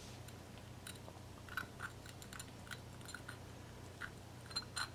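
Broken porcelain pieces clicking and grating lightly against each other as a shard is fitted dry to the figurine's body by hand: faint, irregular clicks, the loudest two near the end, over a low steady hum.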